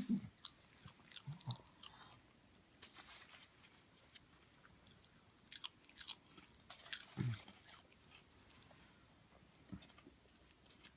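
A pet crunching and chewing popcorn, in irregular clusters of short, crisp crunches.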